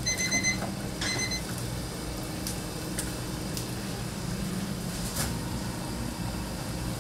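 An electronic appliance beeping twice in the first second and a half, a short high tone each time, followed by a steady low hum with a few light clicks.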